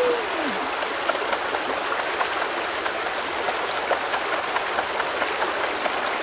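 Stream water flowing steadily, with quick wet clicks of a mouth chewing cooked octopus, about four a second.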